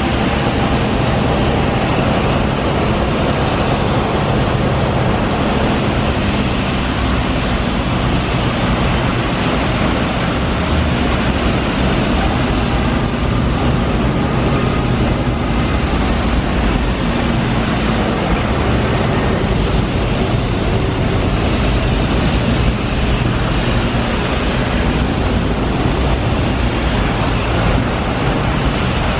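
Steady drone of heavy diesel machinery running, with a low engine hum over a wash of site and traffic noise.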